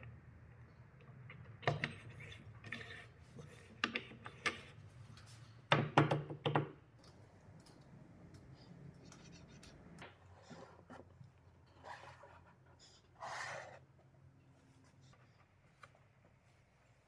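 Workshop handling noises: scattered light knocks, clicks and taps as wooden blocks, a wooden jig frame and a metal tool are set down and moved about on a table saw's metal top. The loudest cluster of knocks comes about six seconds in, with a short scrape about thirteen seconds in.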